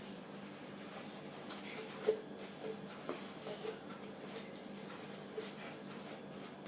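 Quiet room tone with faint, scattered small clicks and taps of hands handling things.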